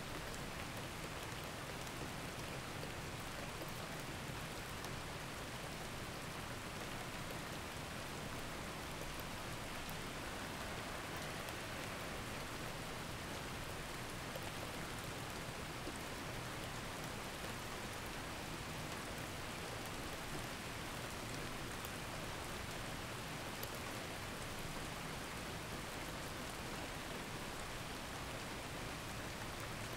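Steady rain, an even hiss that holds the same level without breaks or changes.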